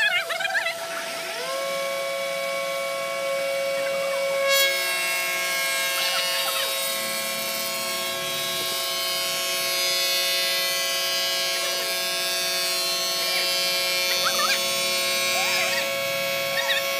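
Industrial wood planer's motor winding up to a steady whine about a second in, then a hiss joins about four and a half seconds in as the cutters take wood from a hardwood slab fed through, running on steadily.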